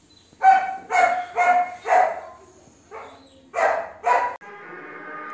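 A dog barking repeatedly: about seven short barks, four in quick succession and then three more. Near the end the barking cuts off and background music comes in.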